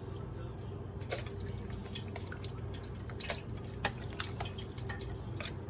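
Soaked spices and broth being ladled from a bowl into a glass blender jar: liquid dripping and splashing, with a few sharp clicks of the ladle against the bowl and jar, over a steady low hum.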